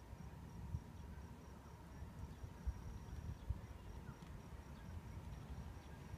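Faint outdoor background: a low rumble on the microphone with a few soft bumps, under a thin, high, pulsing insect trill that fades out about halfway through.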